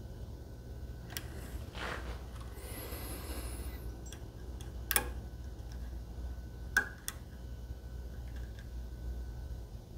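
Lock picking in a Medeco lock cylinder: small metallic clicks and faint scraping of a pick and tension wrench working the pins, with two sharper clicks about five and seven seconds in, over a low steady hum.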